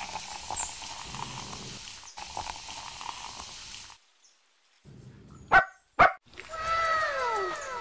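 Sprite fizzing and hissing as it is poured over ice and jelly into a glass for about four seconds. After a short silence a dog barks twice, sharp and loud, then gives falling whines near the end.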